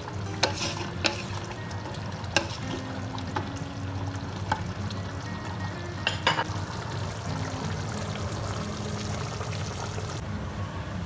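Mutton kurma gravy cooking in a pot with a steady sizzle. It is stirred with a spoon that knocks sharply against the pot several times.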